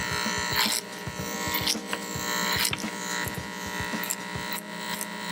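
Electric hair clippers buzzing as they cut through the hair of a human-hair wig, with many short crackling clicks as the blade bites.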